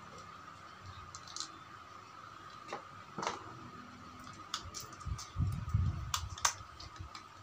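Small screwdriver clicking and scraping as screws are driven into a hair clipper's plastic housing, with scattered sharp clicks and a duller handling knock about five seconds in, over a faint steady high hum.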